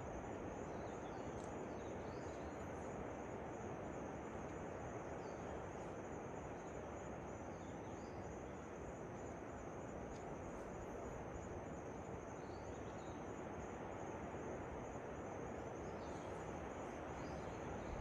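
Steady rush of a waterfall, with a continuous high insect trill over it and scattered brief bird chirps.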